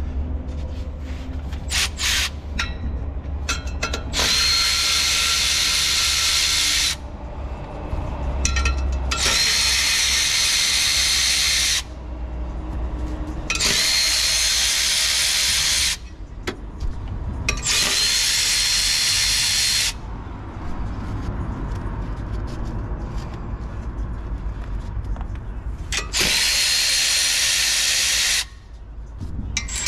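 Power ratchet run in several bursts of two to three seconds each, a high hissing whine, as it turns the clutch pressure plate bolts on a Ford Fiesta's flywheel.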